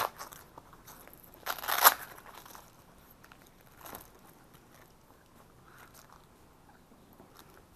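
Crinkling, crunching handling noise of plastic gear and cables worked by hand: a burst right at the start, a louder one about two seconds in, and a faint one near four seconds.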